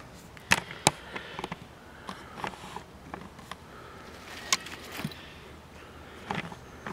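Handling noise: scattered sharp knocks and clicks with rustling as the camera is moved and repositioned, then a shoulder pack is set down on dry leaf litter near the end.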